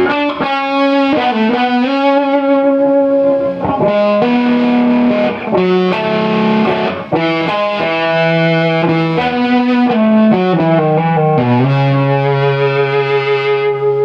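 Electric guitar played through a compressor/fuzz/sustainer effect circuit: a run of distorted notes, then a low note held with long sustain for the last few seconds.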